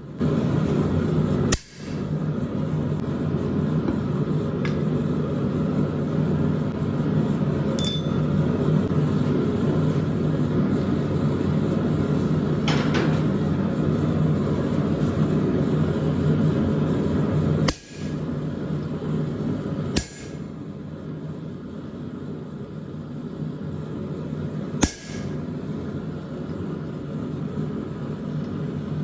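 Blacksmith's forge running with a steady low rushing noise and hum while the bar heats, broken by a few sharp clicks.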